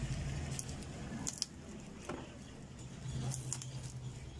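Cutting pliers snipping through the copper coil winding of a 24-slot churner motor stator: several sharp metallic clicks, with copper wire rustling, over a steady low hum.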